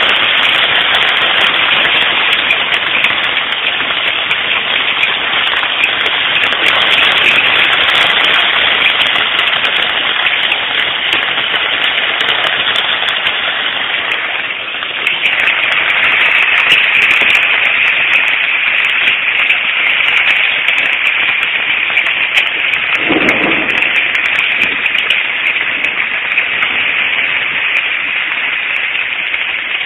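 Heavy hail, golf-ball to some tennis-ball sized, striking a camper in a dense, continuous clatter of impacts, heard from inside.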